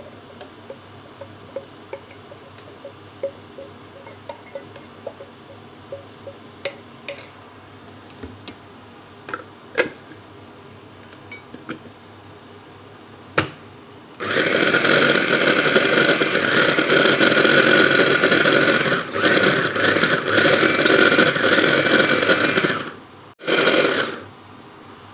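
Electric mini food chopper grinding toasted grated coconut fine: its motor runs steadily for about nine seconds, stops briefly, then gives one short pulse. Before it starts, scattered light clicks and taps.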